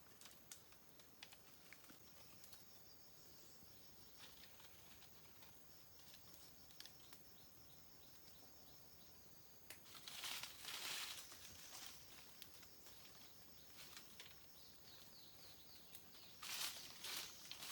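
Faint scattered clicks and two louder bursts of rustling, about ten and sixteen seconds in, over a faint steady high-pitched drone.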